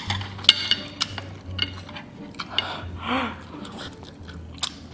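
Close-miked mouth sounds of a person eating spicy fire noodles: wet clicks and smacks as she chews, with a longer slurp of noodles about two and a half to three seconds in.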